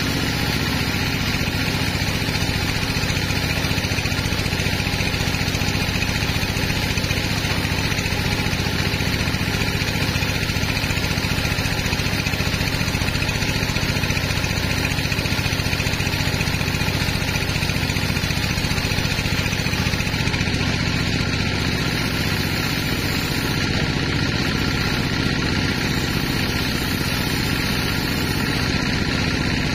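Band sawmill running steadily as its blade cuts a long slab from a large log.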